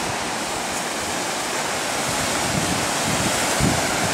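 Sea surf breaking on a sandy beach, a steady wash of waves, with low gusts of wind on the microphone in the second half.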